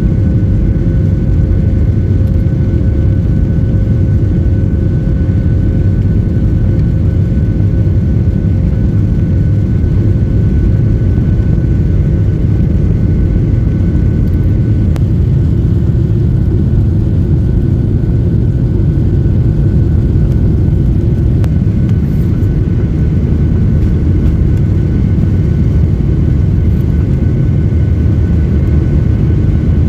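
Steady cabin roar of a Boeing 737-800's CFM56 jet engines and airflow, heard from inside the passenger cabin, with a faint steady whine over the low rumble.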